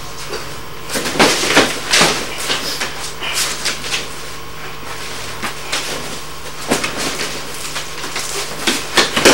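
Two wushu fighters sparring and grappling: scuffs, thuds and cloth rustling as they strike and clinch. The noises come in a cluster a second or two in, as scattered knocks later, and in a dense burst near the end, over a steady low hum.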